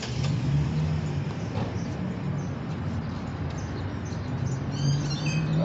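Steady low mechanical hum, with a quick run of high, falling bird chirps about five seconds in.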